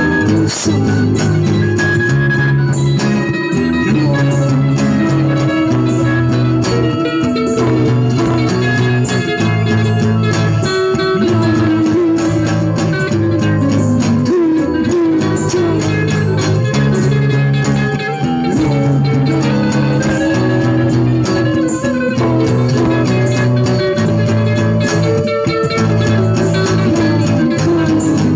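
Instrumental band music: a guitar plays over a repeating bass line.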